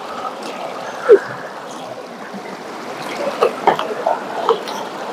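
River water running, with a sharp splash about a second in and a run of small splashes and sloshes in the second half as a gold pan of sediment is worked in the stream.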